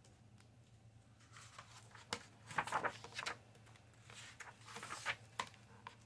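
Paper rustling and soft flaps and taps as a thin children's book is opened and its cover and first pages are turned, in short bursts of handling noise.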